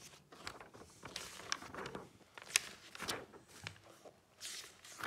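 Pages of a Panini football sticker album being turned and handled: paper rustling, with scattered light clicks and crinkles.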